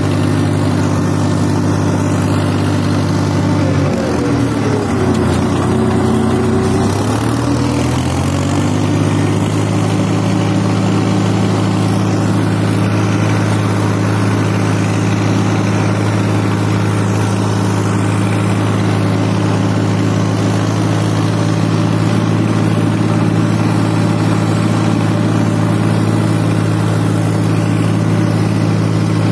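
Massey Ferguson 241 DI tractor's three-cylinder diesel engine running under load, pulling a nine-tine tiller with the lift fully down. About four seconds in, the engine note drops for a few seconds, then climbs back and holds steady.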